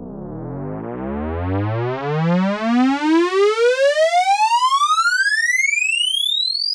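Synthesized riser sound effect: a buzzy tone with many overtones gliding steadily upward from a deep pitch to a very high one, with a wobble in loudness that speeds up from a couple of seconds in.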